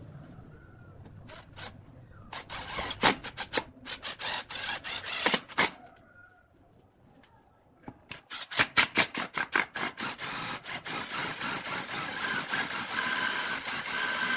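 Makita 18V cordless drill working a bit into a wooden slat on a steel frame: a first run with sharp clicks, a pause, then a longer steady whirring run from about halfway in that stops suddenly near the end.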